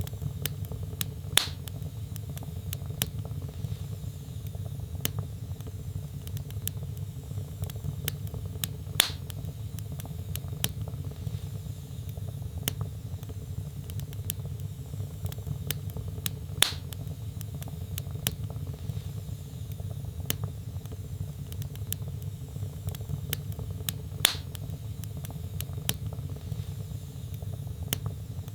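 Logs burning in a fireplace, crackling: a steady low rumble of flame under many small ticks, with four sharper pops at even intervals about seven and a half seconds apart.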